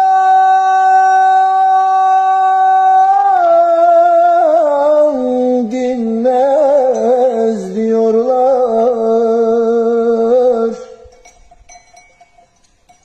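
A man's unaccompanied voice singing an uzun hava, a free-rhythm Turkish folk song. He holds a long high note for about three seconds, then sings a wavering, ornamented run that slides downward in pitch and breaks off about ten and a half seconds in.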